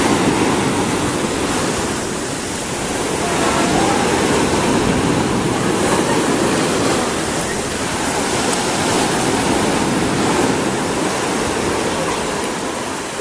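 Steady rushing noise of water, easing slightly a couple of times and then building again.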